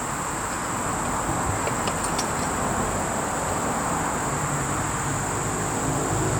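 Blacksmith's forge running with a steady rushing noise while the steel spanner heats in the fire, close to burning. A steady high insect drone sounds over it.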